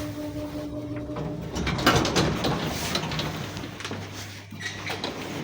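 SamLZ elevator from 1978 in operation: a steady hum for the first second and a half, then the mechanism clatters and clicks, and it settles into a low hum near the end.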